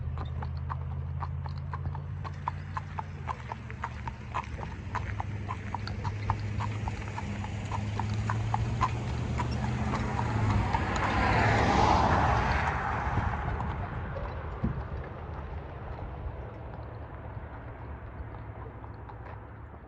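Hoofbeats of a Tennessee Walking Horse gelding: a steady clip-clop of about two to three hoof strikes a second. Roughly halfway through, a louder rushing noise swells and then fades.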